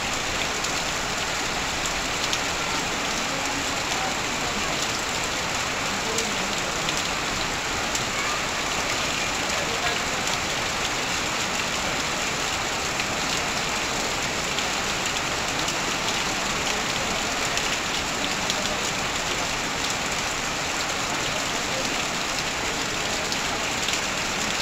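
Heavy rain falling steadily on corrugated metal sheeting and leaves, with a stream of runoff pouring off a roof edge onto the ground. An even hiss sprinkled with many small drop ticks, with no breaks.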